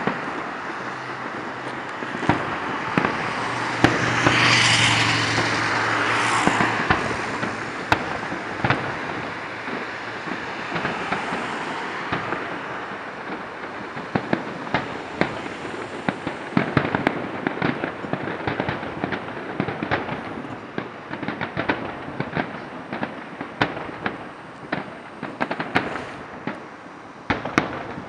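Aerial fireworks display: repeated bangs and crackling bursts from exploding shells, coming thick and fast in the second half. About four to seven seconds in there is a louder rushing swell with a low steady hum.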